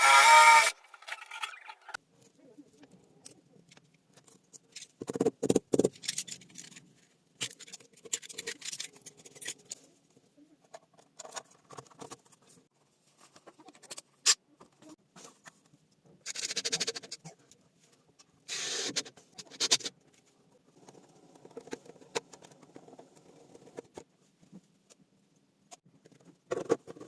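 Loud rasping tool noise that cuts off within the first second, then intermittent small handling sounds: rustles, scrapes and sharp clicks of parts being worked by hand while a wall light fixture is fitted and wired.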